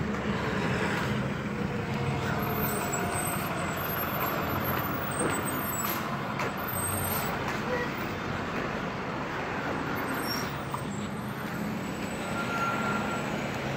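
Road traffic passing on a city street. A school bus's engine runs as it drives by at the start, cars and a pickup pass in the middle, and a van's engine hums close by near the end.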